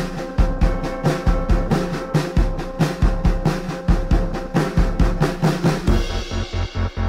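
Music with a busy drum-kit beat, snare and bass drum hitting rapidly over a held tone. About six seconds in, the drums drop out and the highs fall away, leaving a pulsing electronic bass at about four beats a second.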